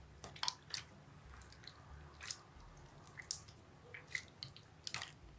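Faint, irregular sharp clicks and small smacks, about two a second, over a quiet room background.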